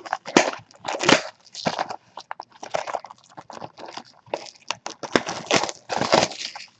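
Plastic packaging crinkling and rustling in the hands, in irregular short crackles.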